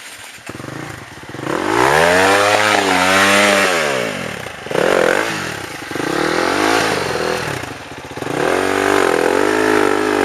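Dirt bike engine revving in about four surges, its pitch rising and falling with the throttle, the first and longest coming about a second and a half in.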